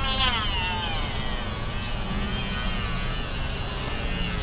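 Handheld rotary tool running with a steady high whine as its bit bores out the inside of a rubber injector O-ring. Its pitch sags during the first second, then holds steady.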